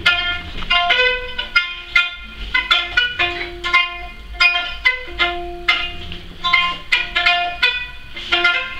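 Violin playing a melody of short, separate notes, each with a sharp start.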